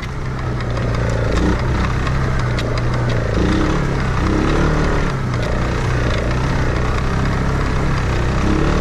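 ATV quad bike engine running as it is ridden along a rough dirt track, its note rising and falling a few times with the throttle, with scattered clicks and rattles.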